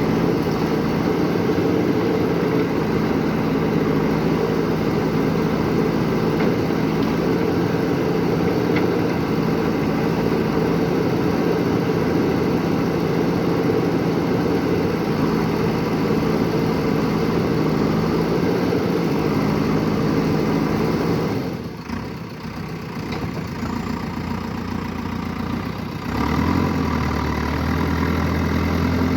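An excavator's engine running steadily. About three-quarters of the way through the sound drops away for a few seconds, then a deeper, steady engine hum takes over near the end.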